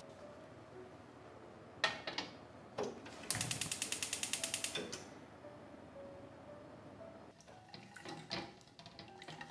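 Gas hob's spark igniter ticking rapidly, about a dozen clicks a second for about a second and a half, as the burner is lit under a stainless steel pot. Before it, a couple of knocks as the pot is set on the burner grate; near the end, a silicone spatula knocking and scraping in the pot as it is stirred.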